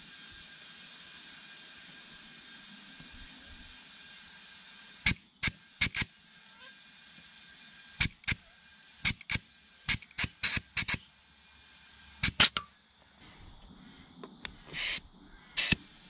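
Air-line tyre inflator filling an old plough tyre: a steady hiss of air for about five seconds, then a string of short, sharp hisses and clicks as the chuck works on the valve, and two longer bursts of air near the end.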